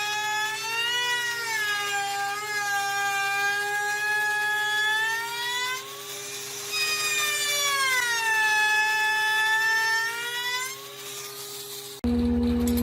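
Electric power tool motor whining, its pitch dipping and recovering several times as it is loaded and eased off in the wood. The sound changes abruptly near the end to a different steady machine hum.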